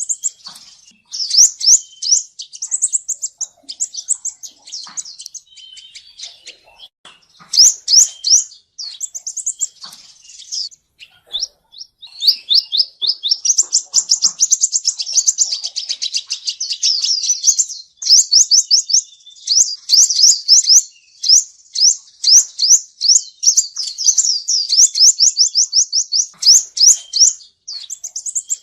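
Male sunbird singing: fast runs of sharp, high-pitched notes, broken into short phrases at first and then long, rapid trills through the middle and latter part.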